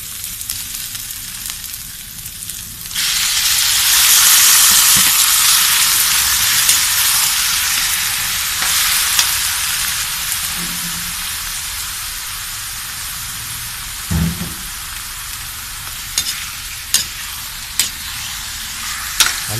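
Marinated pork pieces tipped into hot oil in a wok with sautéed garlic and onion, bursting into a loud sizzle about three seconds in; the sizzle slowly dies down as the meat cooks, with a few sharp clicks of the metal spatula against the wok near the end.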